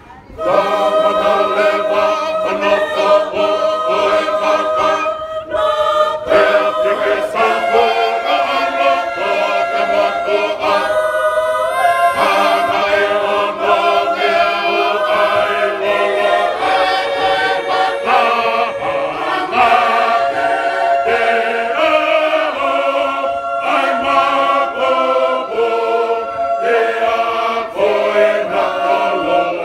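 Large Tongan church choir singing a hymn unaccompanied, many voices in parts. The singing comes back in full just after a brief pause at the start.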